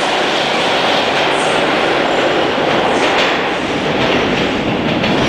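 Toronto subway train pulling out of the station and running into the tunnel: a loud, steady rumble and rattle of steel wheels on the rails.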